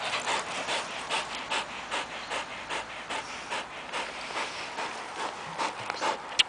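Whippet panting hard and fast with its mouth open, about two to three breaths a second, winded from running and playing. A single sharp click near the end.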